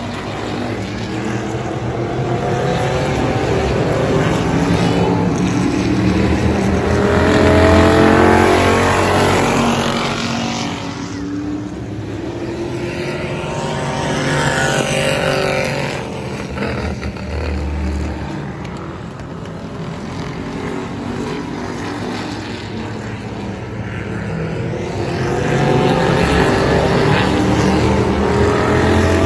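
Race car engines running around the oval, swelling louder and fading as the cars pass by, about three times, with the engine pitch rising and falling with each pass.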